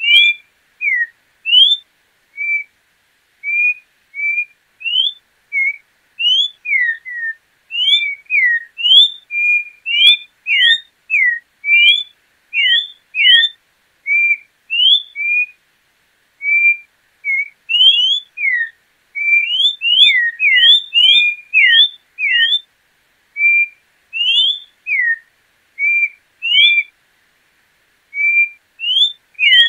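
A João-pinto troupial singing a long run of short, clear whistled notes, about two a second, some slurring up and some slurring down. The notes break off briefly a couple of times.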